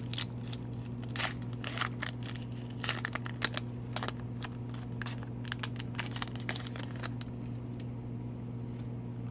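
Foil trading-card pack wrapper being torn open and crinkled: a run of short, irregular crackles and rustles, thinning out after about seven seconds, over a steady low hum.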